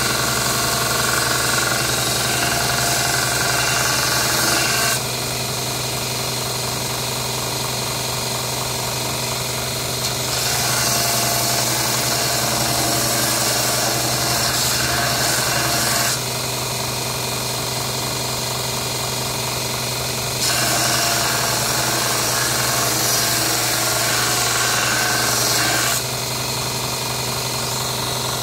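Small belt grinder running steadily, with a piece of thin synthetic handle-scale material pressed against the belt by hand in three grinding passes of about five seconds each. The sanding hiss rises each time the piece goes on the belt and falls back to the motor's hum between passes.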